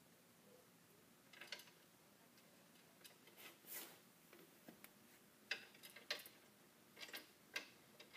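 Mostly quiet, with about eight faint, irregularly spaced clicks and taps of metal parts as the shock's lower bolts are lined up and fitted into the snow-bike track kit.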